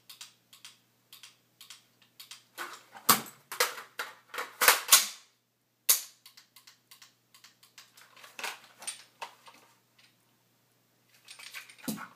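Metallic clicks and clacks of an unloaded AR-15-style rifle and a 9mm Ruger SR9c pistol being handled in a dry-fire drill: magazines being changed, the bolt and slide released, the pistol drawn. The clicks come in quick clusters, busiest about three to five seconds in.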